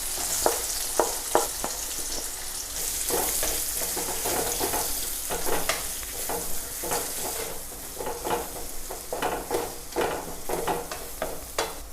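Sliced onions sizzling as they sauté in hot oil in a pan, stirred with a spoon that scrapes and taps the pan in short, irregular strokes. The sizzle is loudest at first and eases toward the end.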